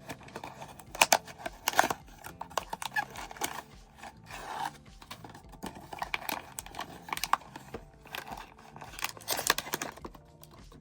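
Hands opening a cardboard blind box and its inner wrapping: irregular snips, tearing and crinkling of packaging with sharp clicks, coming and going.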